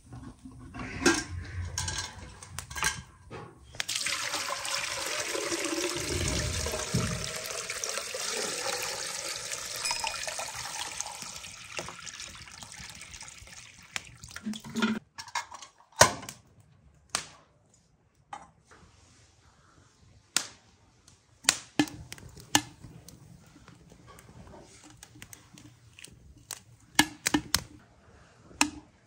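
Water poured from a metal milk can into a samovar, a steady gush for about eight seconds. Before and after it come scattered metal clinks and knocks as the lid and chimney are handled.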